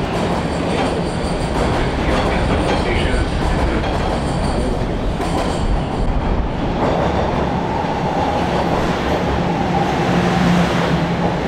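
Subway train running through a station: a steady, loud rumble of wheels on the track, with a steady higher tone joining about seven seconds in.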